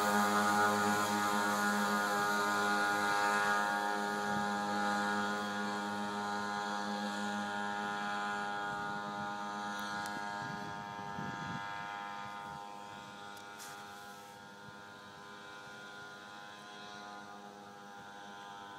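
Pocket bike (mini motorcycle) running at a steady pitch, its engine hum fading away as it rides off into the distance.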